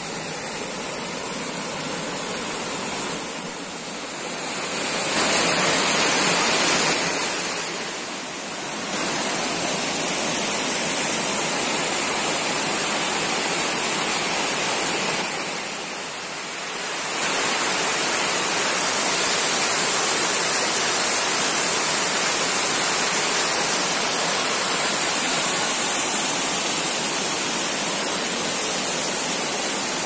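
Waterfall pouring over rocky ledges into a pool: a steady, even rush of falling water, louder for a few seconds about five seconds in and dipping briefly a few times.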